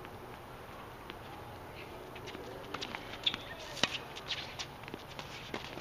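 Tennis on an outdoor hard court: after a quiet first two seconds, a string of sharp knocks and scuffs from the ball and the players' shoes as the near player bounces the ball and serves.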